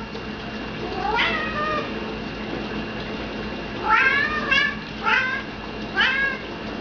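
Tabby-and-white domestic cat meowing: one meow about a second in, then three shorter meows in quick succession from about four seconds in, each starting with an upward sweep in pitch.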